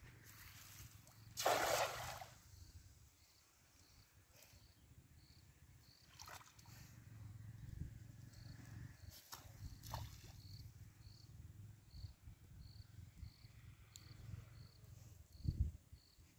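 A cast net splashes down onto the pond surface about a second and a half in: one hissing splash lasting about a second. After it, a faint low rumble and a few small clicks while the net is drawn back, under an insect's short high chirps repeating evenly, about three every two seconds.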